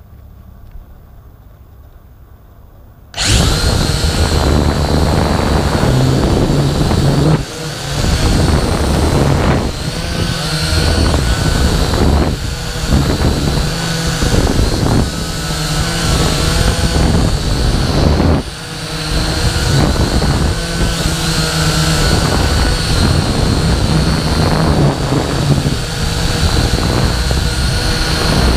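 Quadcopter drone's electric motors and propellers spinning up suddenly about three seconds in, then running loud with a high whine, the pitch wavering up and down and the level dipping briefly twice.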